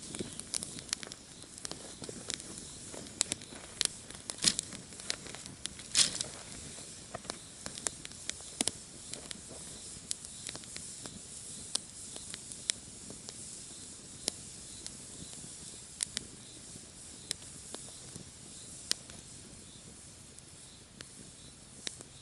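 Campfire crackling: irregular sharp pops over a steady hiss, the pops thicker in the first half and thinning out later.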